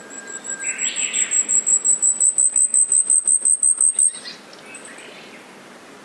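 Asian stubtail singing: a run of very high-pitched, thin notes, about six a second, growing steadily louder over some four seconds and then cutting off abruptly. Fainter, lower calls of other birds come in briefly.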